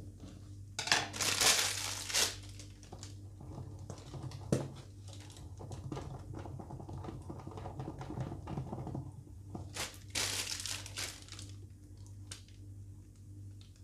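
Plastic piping bag of cream crinkling as it is handled and squeezed, loudest in two spells about a second in and again near ten seconds, with a sharp click between them. A low steady hum sits underneath.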